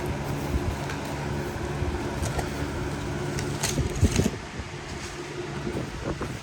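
A steady hum like a room fan or air conditioner, with a few clicks and crinkles of packaging being handled, the loudest near the middle.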